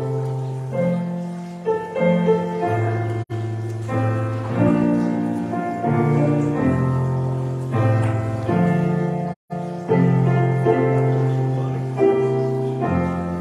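Slow instrumental church music played on a keyboard instrument, held chords changing every second or so, with the sound cutting out for an instant twice.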